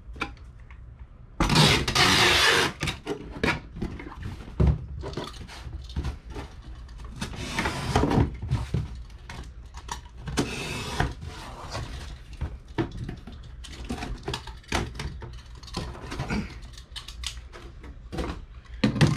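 Box cutter slicing through a cardboard shipping box, with scraping, rustling and knocks as the cardboard is handled and a cut-out panel is pulled free. The loudest is a long scrape about a second and a half in.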